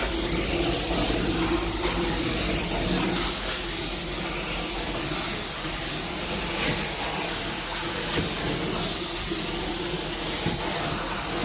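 Carpet cleaning machine running with a steady suction hiss; its tone gets brighter about three seconds in.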